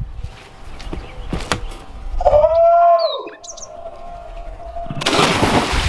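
A man's loud yell about two seconds in, rising and then falling in pitch, as he makes a backflipping cliff jump; a few faint bird chirps, and about five seconds in a sudden loud rushing noise.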